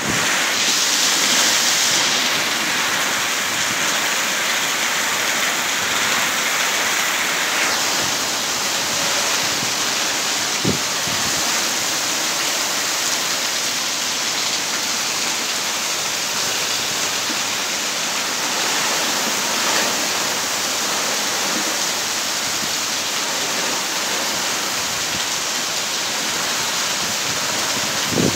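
Hurricane rain and wind, a steady rushing noise with no letup. One brief knock about ten seconds in.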